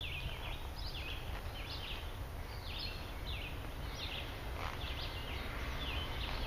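Songbirds giving repeated short, high chirps, several every second or two, over a low steady rumble.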